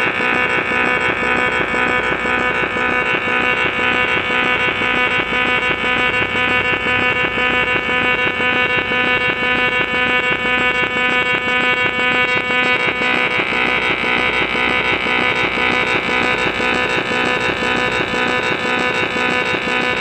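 Emergency Alert System (EAS) alarm tone: a loud electronic tone made of several steady pitches stacked together, pulsing rapidly and evenly. Its upper tones shift and brighten about 13 seconds in.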